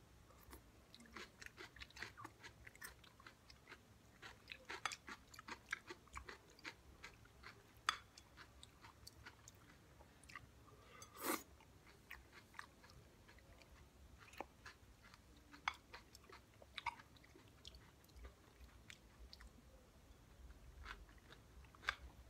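Close-up chewing of crunchy fresh salad (cucumber, tomato, onion and white sirene cheese): a run of quick, faint wet crunches for the first several seconds, then sparser chews, with a few sharper clicks standing out.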